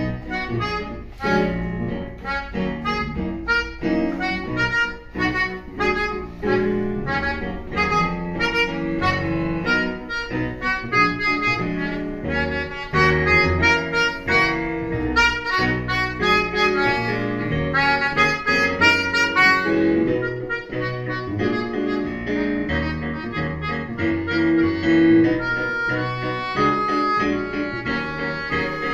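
A group of keyboard harmonicas (melodicas) playing a piece together in several parts, with many short notes sounding over one another.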